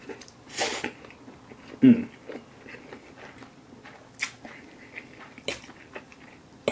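A man slurping spaghetti noodles off a fork and chewing, with a quick noisy slurp just under a second in and a short low hum of voice about two seconds in. Scattered wet smacks of mouth and fork follow.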